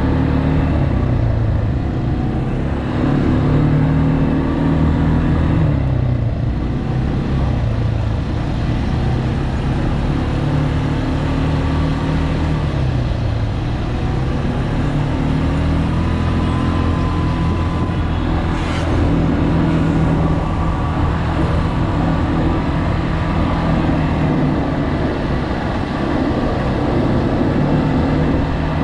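ATV (quad bike) engine running under way, its pitch rising and falling repeatedly as the throttle is opened and eased.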